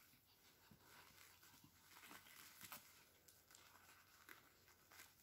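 Faint crinkling and light pattering of puppies moving about on a paper-and-plastic puppy training pad, with a few small scattered crackles.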